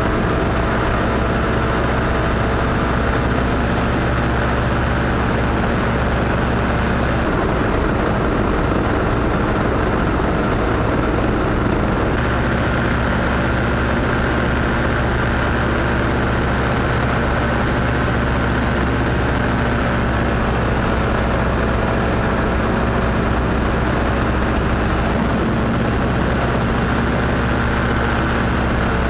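A small aircraft engine drones steadily at an even pitch over a rush of air.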